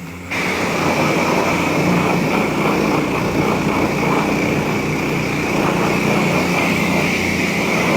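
High-pressure spray from a self-serve car wash wand hitting a motorcycle during the soap stage. It starts about a third of a second in, a steady hiss with a low hum beneath.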